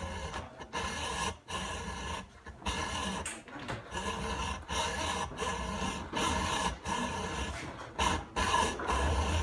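Hacksaw blade cutting through a carbon-fibre fork steerer tube in a saw guide, a rasping sound in repeated back-and-forth strokes with brief breaks between them.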